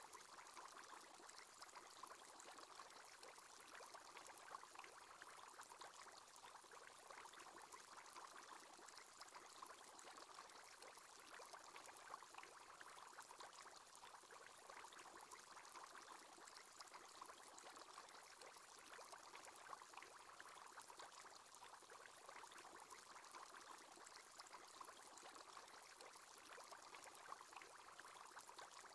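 Faint, steady bubbling of an aquarium aerator's bubble column: a continuous fizz of many tiny pops.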